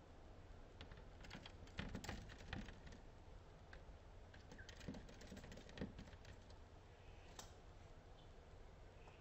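Faint, irregular clusters of light taps and clicks from a variegated fairy-wren's beak, feet and wings striking window glass as it flutters at the pane.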